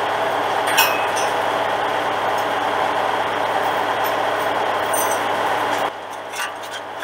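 Skid-steer loader engine running steadily, with a couple of short metal clinks. The engine sound drops away abruptly about six seconds in.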